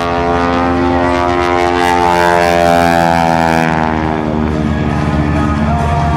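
The Showcat aerobatic biplane's Pratt & Whitney R-985 radial engine and propeller running hard through a manoeuvre. Its pitch rises over the first few seconds and then falls away.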